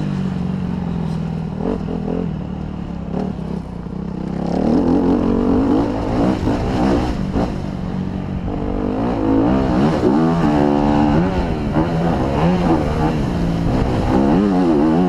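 Honda CRF250R's single-cylinder four-stroke engine revving up and down through the track, its pitch climbing and dropping as the throttle is worked and it shifts gears. It eases off about three to four seconds in, then pulls hard again. Heard close-up from a helmet camera.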